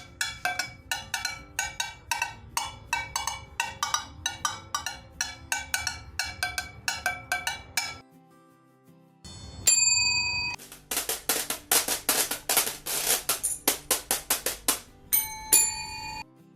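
Small percussion instruments sounded one after another. First comes a run of pitched, bell-like strikes at about two a second for eight seconds. After a pause, a single ringing strike leads into a quick run of bright, hissy hits, and a short ringing strike closes it.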